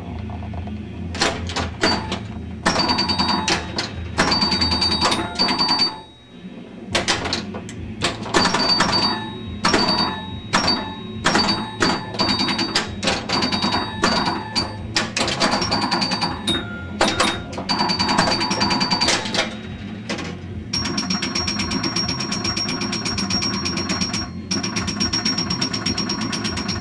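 1977 Bally Strikes and Spares pinball machine in play: rapid clacks and knocks of its bumpers and solenoids mixed with short high scoring tones, dropping off briefly about six seconds in. From about two-thirds of the way through, a long unbroken run of fast, even clicks over a steady high tone.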